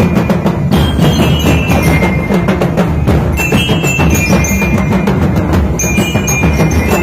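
Ati-atihan festival drum band playing a loud, dense rhythm on drums, with short high ringing metallic notes over it.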